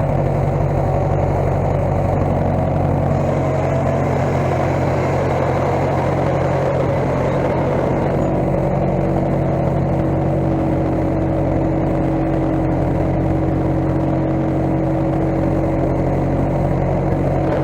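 Case skid steer's engine running steadily.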